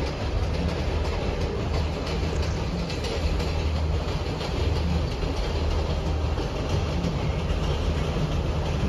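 Sri Lankan diesel passenger train running past: a steady rumble with the clickety-clack of its wheels on the rail joints.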